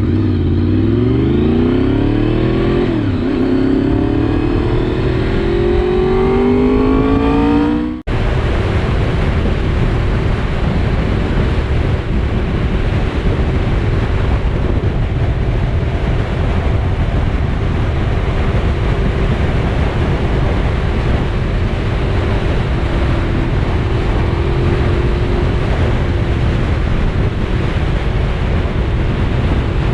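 Honda VFR750 V4 engine accelerating, its pitch climbing steadily with one gear change about three seconds in. After a sudden cut about eight seconds in, steady wind rush on the microphone at riding speed, with a faint steady engine hum underneath.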